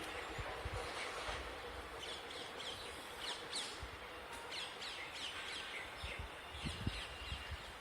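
Small birds chirping in short, high, quick calls over a steady background hum of outdoor noise.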